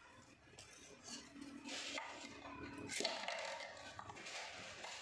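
Rustling and scraping as a baby monkey handles a small paper milk carton and a plastic straw on a tiled floor, with a sharp tap about three seconds in.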